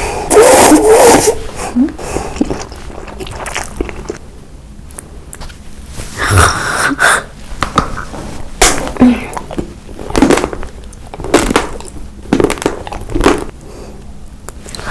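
Close-miked eating: bites and chewing of food in a series of short crunchy bursts every second or two, with quieter pauses between.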